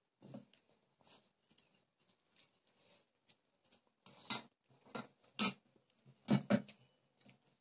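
Close-up eating sounds: irregular chewing and mouth clicks, with a few louder sharp clicks from about four seconds in.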